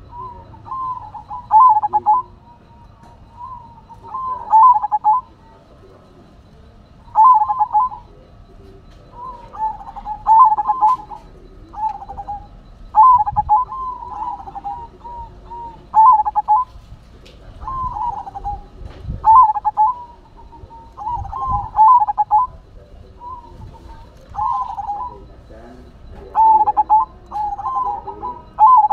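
Silver zebra dove (perkutut) singing: short phrases of quick, bubbly cooing notes, repeated every second or two.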